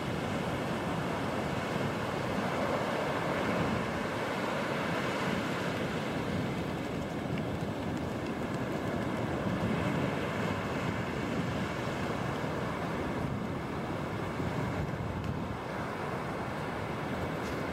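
Low sea waves breaking and washing up a flat sandy beach: a steady surf wash.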